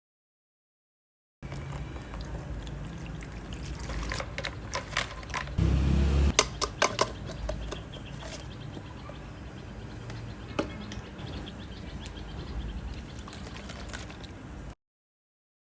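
Wet, liquid-sounding handling of slime, as if poured or squished, with a cluster of sharp clicks and a low thump about six seconds in.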